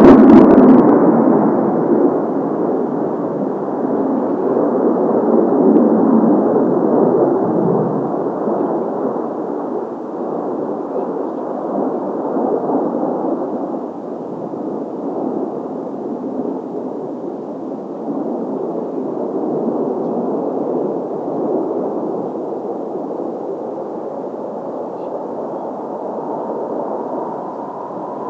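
Jet engine noise from Kawasaki T-4 trainers: a loud rumble fading over the first several seconds after a close pass, then a steadier distant drone that swells and eases slowly.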